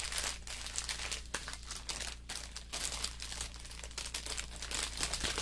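Plastic packaging from a diamond-painting kit crinkling as it is handled, in irregular crackles.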